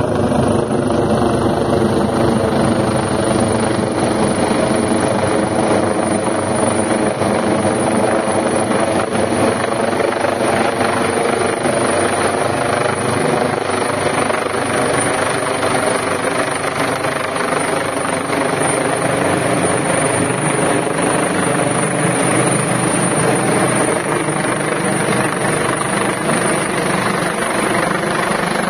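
Helicopter flying overhead, its rotor and engine sound loud and steady throughout, with a thin high whine above it.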